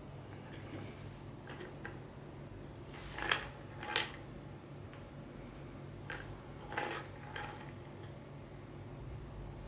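Pink plastic tumbler cat toy rocking after being tapped, its small plastic balls clicking and clattering around the track inside. There are two sharp rattles about three and four seconds in, then a few lighter clicks a couple of seconds later, over a low steady hum.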